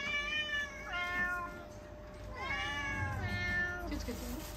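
Domestic cats meowing three times, the last meow longer and falling in pitch at the end: begging for the opened tuna they take for their own food.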